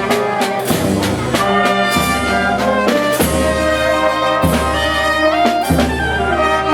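Brass band music: trumpets and trombones playing a march-like piece together, with sustained chords over a regular beat.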